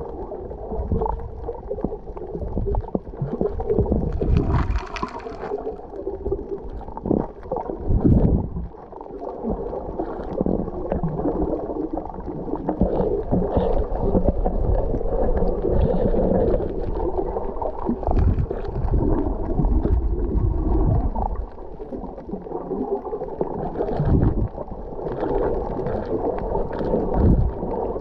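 Muffled water noise heard underwater, an uneven rushing and gurgling, with a brief hiss about five seconds in.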